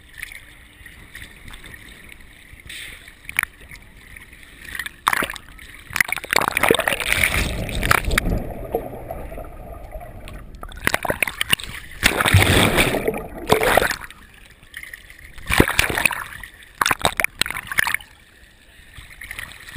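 Sea water splashing and sloshing against a waterproof action camera held at the surface by a swimmer, muffled and gurgling while it is under water. The water noise comes in irregular surges, loudest from about six to ten seconds in and again around twelve to fourteen seconds, with sharp splashes in between.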